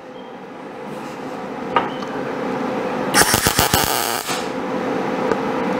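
MIG welder laying a tack weld on the sheet steel of a 1951 Chevy truck cab's roof pillar: a crackling, sputtering arc about a second long, starting about three seconds in. A steady hum runs underneath.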